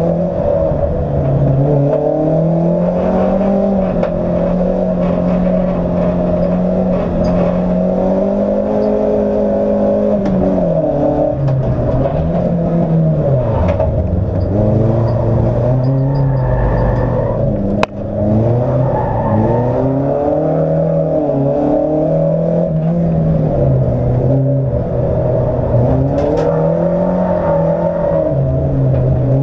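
Opel Corsa track car's engine heard from inside the cabin, driven hard around a circuit: the revs climb and fall again and again under acceleration, braking and gear changes. A brief sharp break about eighteen seconds in.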